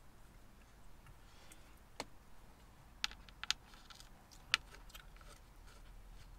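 A handful of small, sharp clicks and taps from hands working the control-panel cover and settings at the top of an Audison SR car amplifier, a few seconds apart, with the loudest about four and a half seconds in.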